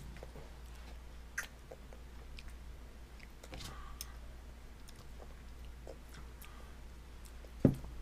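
Baby chewing and smacking on soft finger food, with faint scattered clicks and taps. One sharp thump near the end.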